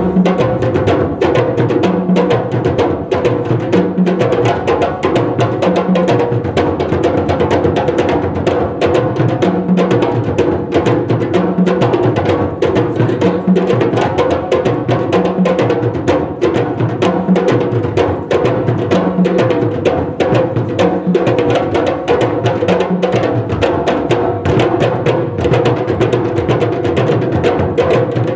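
West African hand-drum ensemble of djembes and larger barrel drums playing a fast, dense rhythm, with a low drum figure repeating about every two seconds.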